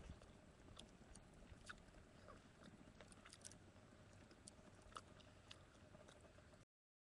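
Faint, irregular crackles and sharp pops of split firewood burning in a small folding box stove. The sound cuts off abruptly near the end.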